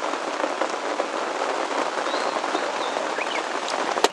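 Steady rain falling, an even hiss with scattered drop ticks, and a single sharp click just before the end.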